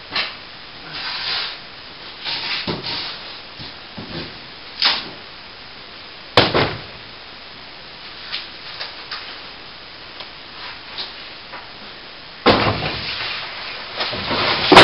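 Irregular scraping and knocking, like debris or sheets being handled. Sharp impacts come about six and a half and twelve and a half seconds in, and the loudest knock is near the end.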